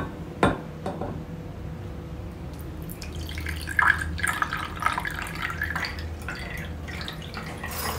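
Coffee being poured from a stainless steel pot into a ceramic cup, trickling and splashing, louder from about three seconds in. Two sharp clinks come in the first second.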